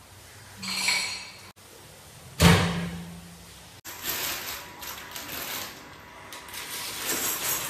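Wooden board handling noises: a short scrape or knock, then one sharp, loud knock about two and a half seconds in that rings briefly. After that comes an uneven rustling hiss.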